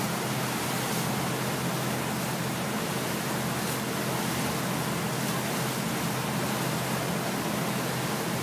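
Motorboat under way at speed: a steady low engine drone under an even rush of wind and water noise.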